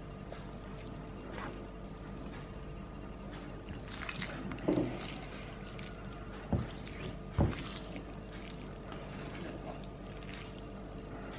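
Hands mixing seasoned raw beef into grated coconut on a plastic plate: soft rustling and squishing over a steady low hum, with three short knocks around the middle.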